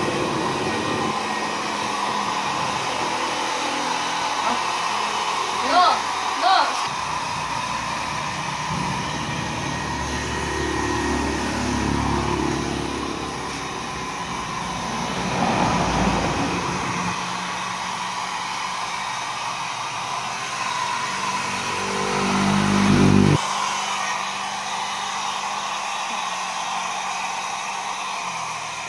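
Handheld hair dryer blowing steadily with a constant whine, drying a Siberian husky's thick coat. Two brief chirps come about six seconds in, and a low buzz swells and cuts off suddenly a little past twenty-three seconds.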